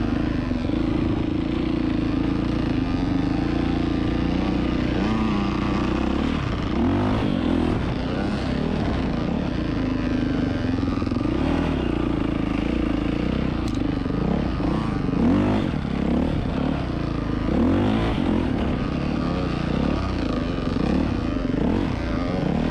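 Dirt bike engine running as it is ridden along a trail, heard from the rider's helmet. It is steady for the first few seconds, then revs up and down again and again as the throttle is worked from about six seconds in.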